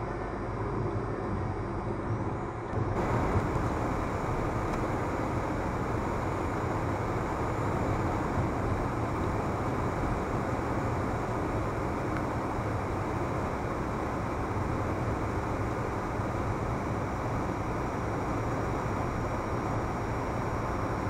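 Steady road and engine noise of a moving car, picked up by a dashcam microphone inside the cabin: an even rumble and tyre hiss. About three seconds in, the level steps up slightly and more high hiss comes in.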